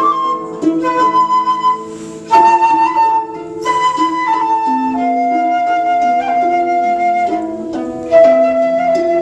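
Transverse flute playing long held notes that step from pitch to pitch, over a guzheng plucked underneath; a louder attack comes a little over two seconds in and again near the end.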